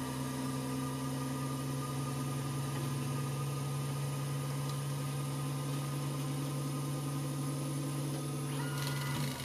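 CNC lathe turning the steel shank of a 16 mm BAP300R milling cutter: a steady mechanical hum from the spindle and the cut, holding one pitch, with a change in tone shortly before the end.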